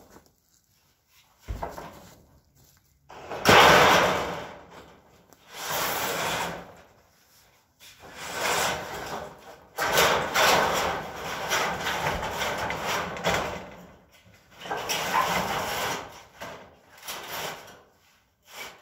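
Corrugated metal roofing sheets being slid and scraped over one another and over the wooden roof frame, rattling as they are shifted into place. The noise comes in several bursts, the longest lasting several seconds in the middle, the loudest about three and a half seconds in.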